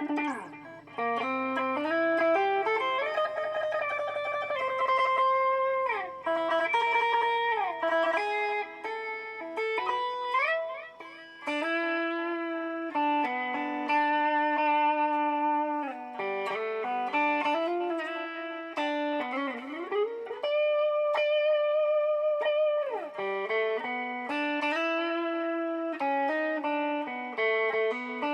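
Electric guitar played through a BOSS DD-8 Digital Delay pedal in Warp mode. Held notes and chords with several sliding pitch bends, the delay carrying each note on.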